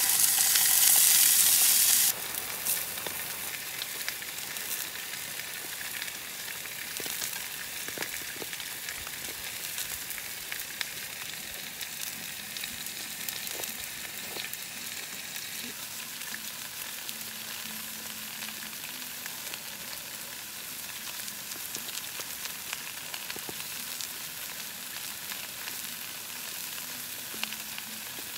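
Pork belly sizzling in a frying pan on a camping stove. The sizzle is loud for about the first two seconds, then settles into a quieter, steady sizzle with small pops and crackles.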